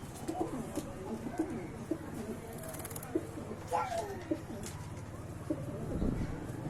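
Domestic pigeons cooing, many short low coos overlapping from several birds.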